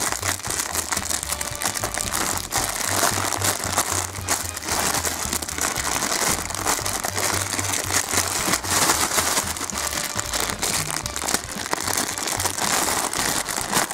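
Clear plastic packaging crinkling and rustling as hands work at a plush toy sealed inside it, over background music with a repeating bass line.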